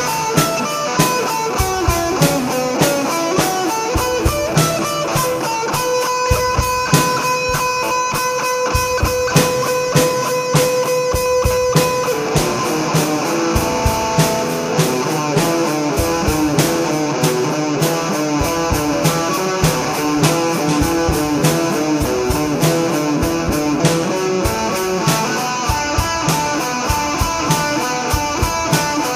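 Instrumental rock: an electric guitar plays over a steady drum-kit beat. Partway through, the guitar holds one note for about six seconds, then moves into a run of shifting notes.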